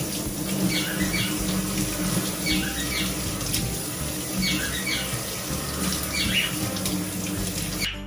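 Water running steadily from a kitchen tap into a sink while greens are rinsed, shutting off abruptly at the end. A bird chirps briefly about four times over the running water.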